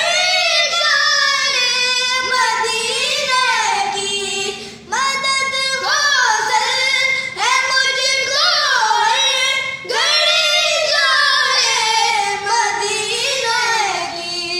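A high voice singing a naat, an Islamic devotional song, in long ornamented phrases with wavering, gliding pitch and short breaths between phrases.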